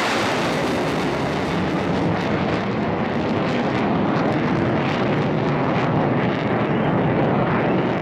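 Jet engine noise from two Su-22M4 fighter-bombers, each powered by a single AL-21F-3 turbojet, flying past. It is a loud, steady rush that loses its highest hiss about two seconds in as the jets draw away.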